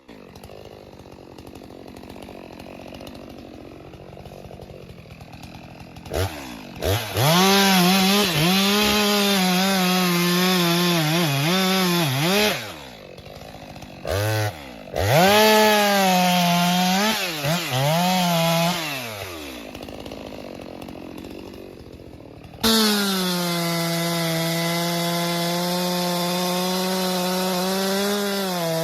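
Chainsaw cutting through a tree trunk, the engine revving high and sagging again and again as the chain bites, with two short drops in throttle. About two-thirds of the way in it starts suddenly and runs at a steady, high pitch.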